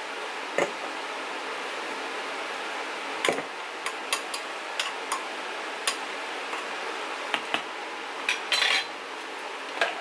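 A spoon clinking and scraping against a glass and a plastic tub as frozen pineapple sherbet is scooped out and pressed into the glass. The clicks are scattered, with a quick run of scrapes a little past the middle, over a steady background hiss.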